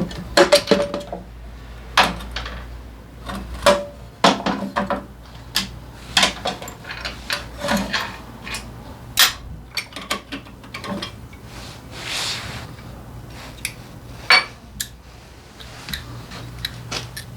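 Metal hand tools and parts clinking and knocking irregularly, some strikes with a short ring, with a brief hissing rub about twelve seconds in, over a steady low hum.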